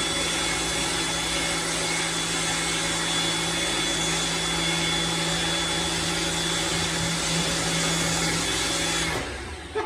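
Lavor Fast Plus 130 electric pressure washer running steadily with the hiss of its spray, laying shampoo foam through its foam attachment; it stops suddenly about nine seconds in.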